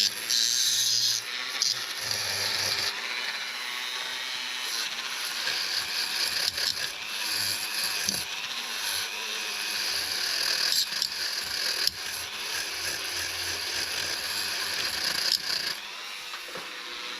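A tool scouring crusty old sealant and corrosion off the metal coolant pipe fittings of a Honda CBR900RR before new hoses go on. It is a harsh, gritty scraping that keeps going with brief breaks and changes in pressure.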